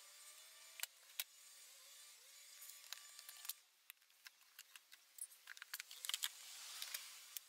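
Faint, scattered clicks and light plastic rattles as the air box lid on a Jeep Cherokee XJ is unclipped and lifted off. A soft rustle comes about six seconds in.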